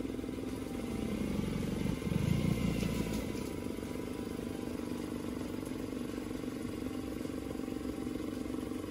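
Suzuki 9.9 hp fuel-injected four-stroke outboard running at idle, briefly revving up about two seconds in and settling back to idle.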